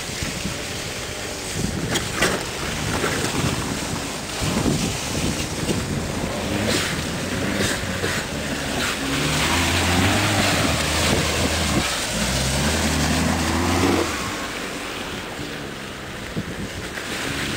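SUV engines running as the vehicles drive across a muddy field, one drawing closer with its engine drone growing louder about halfway through and easing off near the end, with wind rumbling on the microphone.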